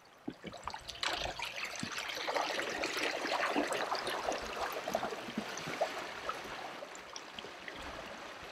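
Water hissing and splashing along a fishing kayak's hull and wake as it runs at full speed under a small electric outboard. It swells about a second in and fades toward the end.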